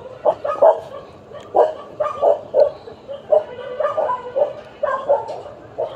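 A dog giving short yips and barks over and over at an uneven pace, about two a second.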